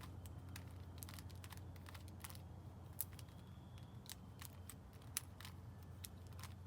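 Plastic clicks and snaps of a Master Morphix puzzle's pieces being turned and locked into place by hand: light, irregular sharp clicks, some of them acrylic nails tapping on the pieces.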